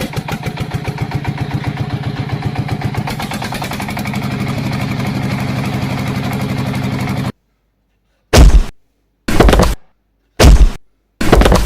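Engine sound, a steady rapid chugging pulse like a tractor's diesel, running for about seven seconds and then stopping dead. After a second of silence come short, loud engine bursts about once a second, each cut off sharply.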